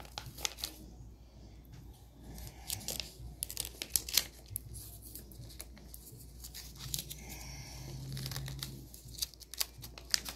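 A small strip of paper peeled back and handled close to the microphone: scattered crackles and rustles of paper.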